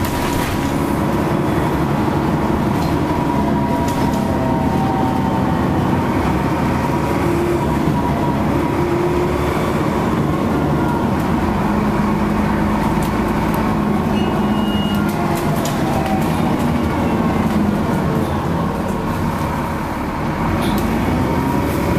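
Interior sound of an Alexander ALX400-bodied Trident double-decker bus on the move: steady engine drone rising and falling in pitch as it accelerates and slows, with a thin turbo whistle over it and scattered rattles from the bodywork.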